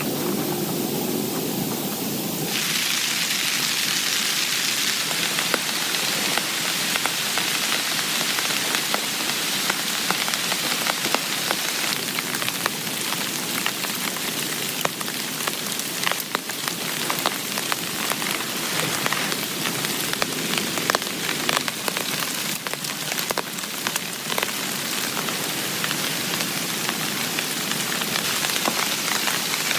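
Heavy rain falling on a tent: a steady hiss dotted with many sharp taps of single drops hitting. About two and a half seconds in, the sound changes abruptly from a duller, deeper rain to a brighter hiss.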